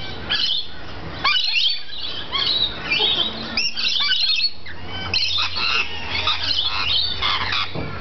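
Several rainbow lorikeets screeching and squabbling, a rapid, near-continuous stream of harsh, shrill calls.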